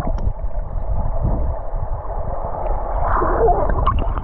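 Water splashing and churning close to the microphone, with a heavy low rumble, starting just after someone plunges into the pool; faint voices come in near the end.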